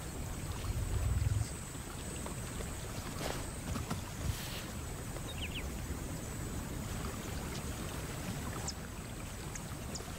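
Water sloshing and splashing as lions wade through shallow delta water, with a low rumble in the first second and a half.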